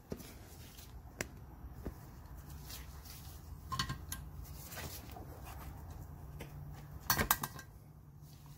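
Metal valve seal puller pliers clicking against the cylinder head as they are fitted over a valve seal: a few light, scattered clicks, with a short quick cluster of clicks near the end.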